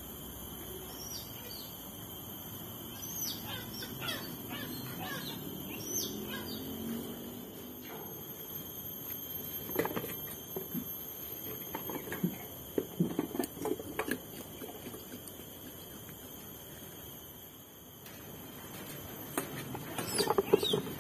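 Small birds chirping in short falling notes over a steady high whine, followed by scattered knocks and, near the end, a louder run of knocks and clatter.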